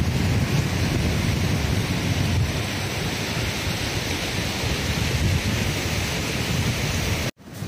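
Wind buffeting the microphone outdoors: a steady rumbling rush with a hiss over it, breaking off for an instant near the end.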